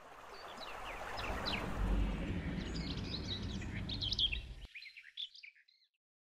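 Small birds chirping over steady outdoor background noise, fading in. The background noise cuts off abruptly about three-quarters of the way through, and the last few chirps trail off shortly after.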